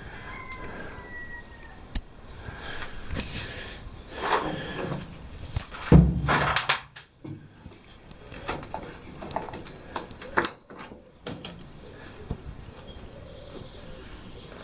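Hands handling the metal parts of a silent, long-idle diesel generator: scattered clicks, knocks and rustles, with one loud thump about six seconds in.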